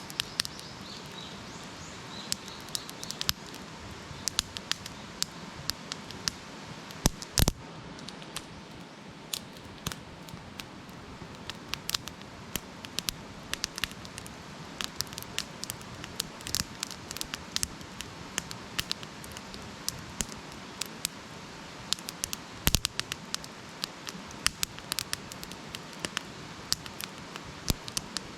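Wood campfire crackling: irregular sharp pops and snaps over a steady low hiss, with a couple of louder pops, one about seven seconds in and one near twenty-three seconds.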